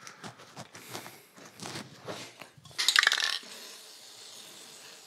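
Small metal ignition parts clicking lightly as they are handled, then a brief loud metallic clatter about three seconds in, as a metal part is set down or dropped on the workbench.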